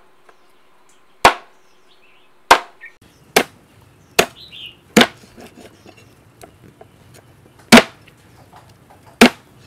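Heavy steel cleaver chopping duck pieces on a wooden cutting board: seven sharp chops at uneven intervals, with a pause of about two and a half seconds in the middle before the loudest chop.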